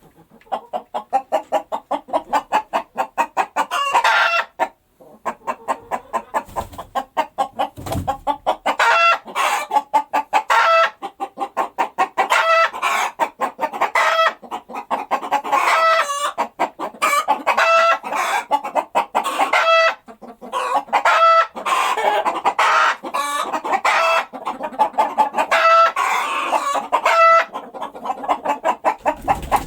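Hen clucking in rapid runs of short clucks, broken every second or two by a longer, drawn-out call; the clucking pauses briefly about five seconds in.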